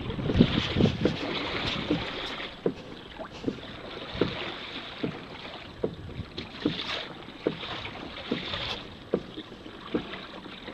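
Kayak paddling: the paddle blades dip into the water in an even rhythm, with a short soft knock about every 0.8 s over a steady splashing hiss. Wind buffets the microphone in the first couple of seconds.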